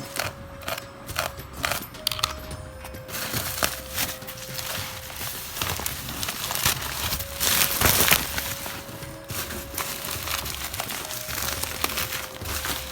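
Hands rummaging through bubble-wrap and cardboard packaging: crinkling and rustling with many sharp clicks, loudest about eight seconds in.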